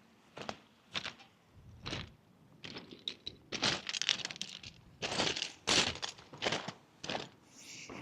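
Footsteps crunching on stones at a walking pace, each step a short gritty crunch.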